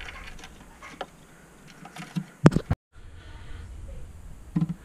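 Fingers working the small plastic clips inside a Tiko 3D printer: a few light clicks and taps, with one sharp click about two and a half seconds in.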